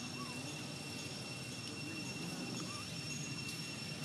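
Outdoor ambience: a steady high-pitched whine over a faint murmur of distant voices, with one sharp click near the end.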